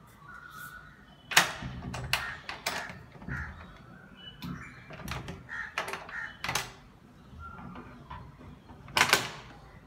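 A cat scratching and pawing at a closed door: about six sharp scratches and knocks, loudest about a second and a half in and again near the end, with fainter short sounds between them.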